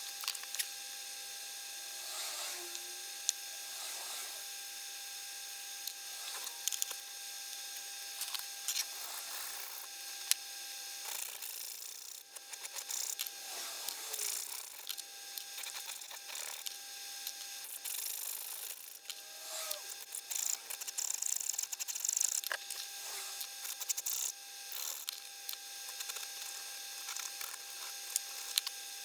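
Hand file rasping in short, irregular strokes on a small titanium watch-clasp part, with clicks and taps as the metal pieces are handled. The strokes come thicker and faster in the middle stretch.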